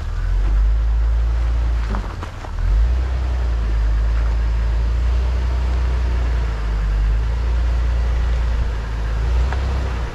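A Jeep engine running at low revs as it crawls over rock, a steady low rumble, with a few faint knocks about two seconds in.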